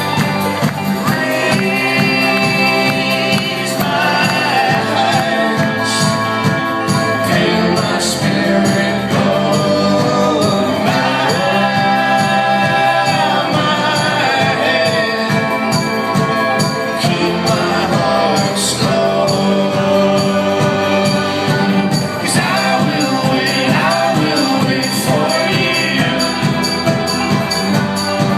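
Live folk-rock band playing with several voices singing in harmony over a steady, driving rhythm, loud and unbroken throughout.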